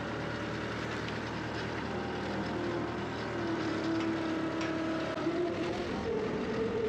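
Skid steer engine running steadily, with a whine that rises in pitch in the second half as it takes on more throttle or load.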